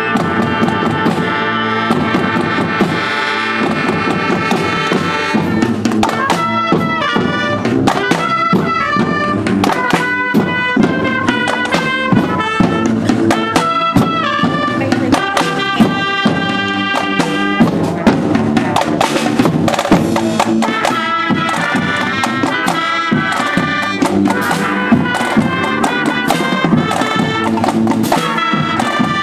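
High school marching band playing a tune: flutes, clarinets, saxophones and trumpets carry the melody over a steady drum beat.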